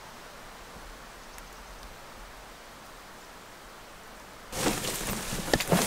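Quiet outdoor ambience with a faint, steady hiss. About four and a half seconds in, it gives way suddenly to loud rustling of brush and clothing.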